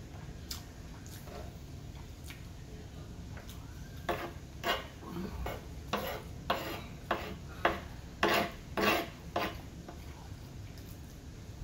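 Metal spoon scraping and clinking on a wooden cutting board, scooping up fried rice: about ten short scrapes in quick succession from about four seconds in, ending shortly after nine seconds, with a few faint taps before them.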